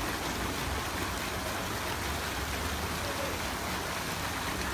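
Water running down a pool water slide and pouring off its end into the pool, a steady, unbroken rush of splashing water.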